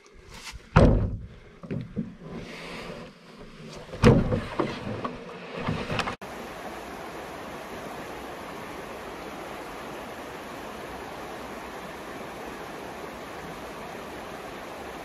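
Footsteps, rustling and a few loud thumps from someone walking while carrying a canoe overhead. After a sudden cut about six seconds in, there is the steady rush of a fast creek tumbling over rocks.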